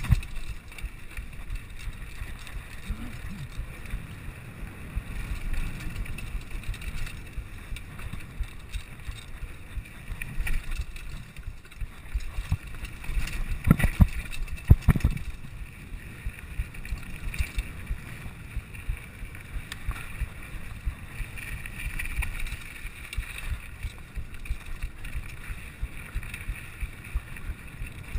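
Mountain bike riding fast down a dirt trail: tyres rumbling over the ground, the bike rattling with many small knocks, and wind on the microphone. A few harder knocks come about fourteen and fifteen seconds in as the bike hits bumps.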